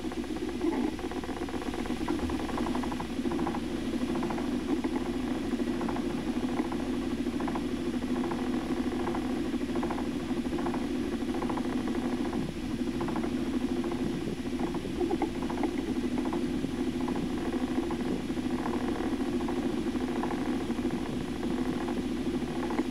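Small sailboat's auxiliary engine running steadily while the boat is under way, with a faint fast rhythmic pulse.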